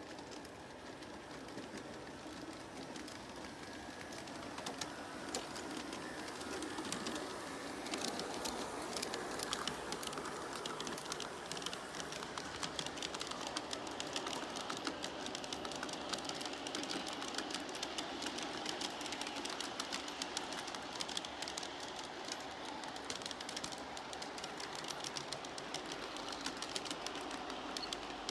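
A G-scale model freight train rolling along garden track, its wheels rumbling steadily and clicking over the rail joints and turnouts. It grows louder over the first several seconds as it nears, and the clicking stays thick from about eight seconds in.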